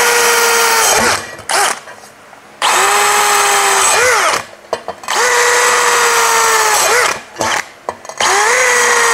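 Bosch cordless drill with a 5 mm hard-ceramic bit drilling through ceramic floor tile in plain rotary mode, with no hammer action. It whines in short runs of one to two seconds, each starting with a rising pitch and dropping off as the trigger is released. Each run takes the bit straight through the tile.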